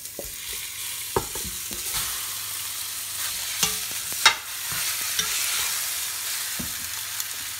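Chunks of raw pork country-style ribs sizzling as they go into smoking-hot oil in a cast iron pot to brown. Over the steady hiss come several sharp metal clinks and scrapes from the spoon and bowl against the pot, the loudest a little past four seconds in.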